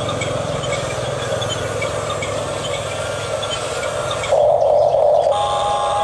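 Electric drive motors and gearboxes of a Huina 1569 RC bulldozer whining as it crawls forward on its plastic tracks. The sound gets louder and buzzier about four seconds in, and a higher whine joins it near the end.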